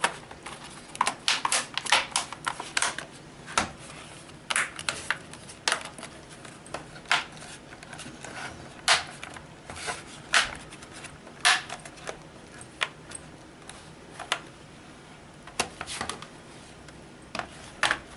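Plastic clips of a Lenovo N22 Chromebook's replacement keyboard-palmrest assembly snapping into place as it is pressed down around its edges: a string of sharp, irregular clicks, sometimes several close together.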